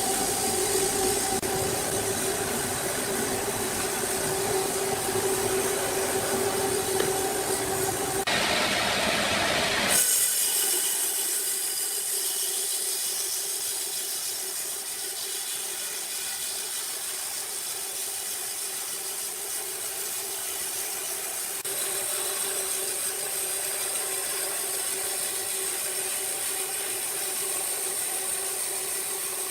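Sawmill machinery running with a steady humming whine. A short rush of noise comes about eight seconds in, after which the deep rumble drops away and the whine carries on.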